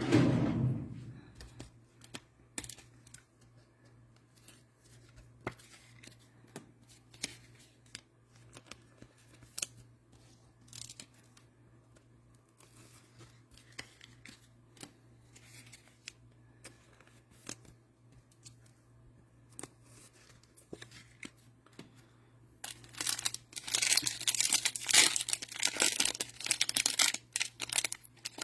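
Plastic cello-pack wrapper of trading cards torn open and crinkled, a dense crackling that starts about 23 seconds in. Before it come a thump at the start and scattered faint clicks of cards and packs being handled.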